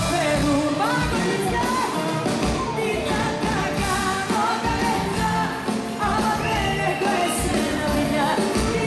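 Live Greek pop music: a female singer singing into a microphone over a full band with drums, recorded from the audience in the club.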